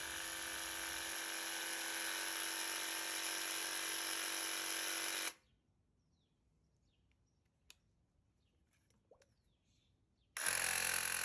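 Graco TrueCoat 360 VSP handheld airless sprayer's electric pump buzzing steadily while it sprays water into a waste bucket to flush the sprayer. It cuts off sharply about five seconds in. After a few seconds of near quiet it starts buzzing again near the end, with the sprayer held upside down.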